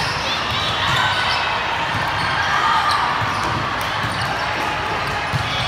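Volleyballs thudding and bouncing on a hard sports-hall floor, with repeated dull thuds every second or so over a steady din of distant voices, echoing in a large hall.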